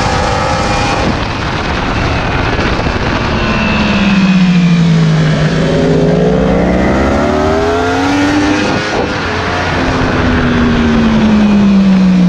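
Yamaha racing motorcycle's inline-four engine heard onboard at speed, with wind rushing throughout. Its note falls as the bike slows about three to five seconds in, then climbs under acceleration, breaks briefly just before nine seconds, and falls slowly again toward the end.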